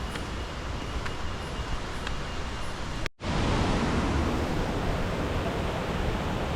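Rushing water of a forest waterfall stream, a steady noise that breaks off for a moment about three seconds in and comes back louder.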